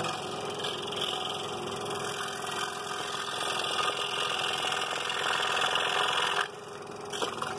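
Scroll saw running, its blade stroking rapidly up and down as it cuts thin wood. The sound is steady and drops noticeably about six and a half seconds in.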